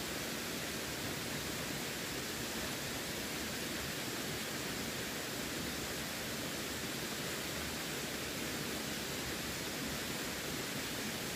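Running water: a steady, even rushing with no distinct splashes or changes.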